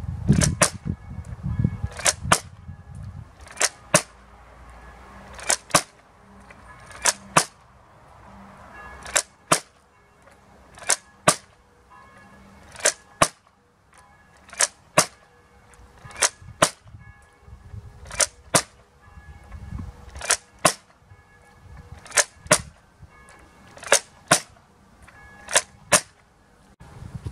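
Nerf Elite Stratobow toy bow firing foam darts one after another, about fifteen shots in a row. Each shot gives a pair of sharp plastic clicks a fraction of a second apart as the string is drawn, which raises the 15-dart magazine, and then released with a snap.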